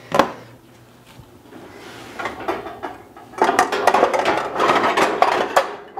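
Metal pots, pans and lids clattering against one another as cookware is rummaged through low down, to fetch a lid for the skillet. The clatter starts about three and a half seconds in and stops just before the end, after a single sharp knock near the start.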